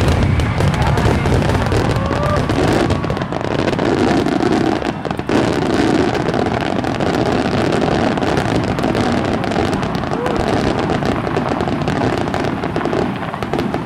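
Starmine fireworks: many shells bursting in quick succession, a dense run of booms and crackles, the deep booms heaviest in the first second or two and the crackling carrying on as the display thins out near the end.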